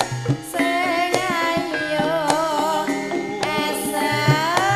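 Live Javanese campursari music: a woman sings a wavering, ornamented melody into a microphone over a gamelan-style ensemble, with frequent hand-drum strokes keeping the rhythm.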